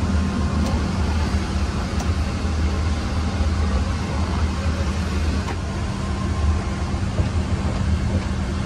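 Steady low hum and rush of an airliner cabin: the Boeing 777-300ER's air conditioning and aircraft systems running, with a few faint clicks.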